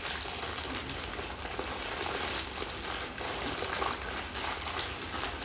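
Plastic shipping mailer crinkling and rustling as it is torn and pulled open by hand.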